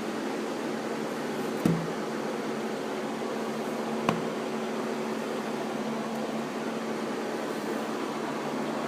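Steady mechanical hum from a motor or fan, with two light knocks, one a little under two seconds in and one about four seconds in.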